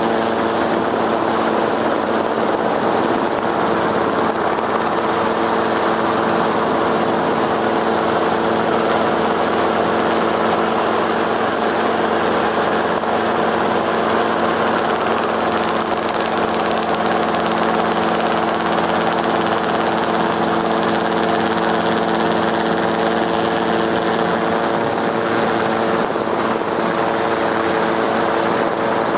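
Steady hum of the rotors of the aircraft filming from overhead: several unchanging tones over a rushing hiss, with no change as the boat below turns and moves away.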